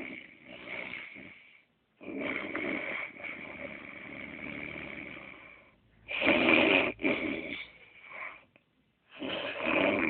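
A man snoring in his sleep: four rasping snores, one per breath, with short silent gaps between them. The snore a little past the middle is the loudest.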